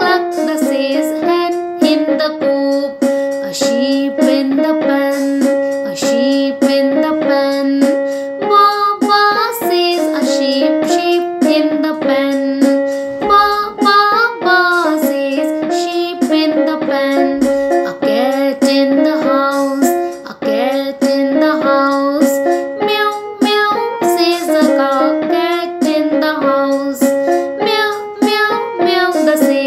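A woman singing a children's rhyme about animals over a rhythmic instrumental backing.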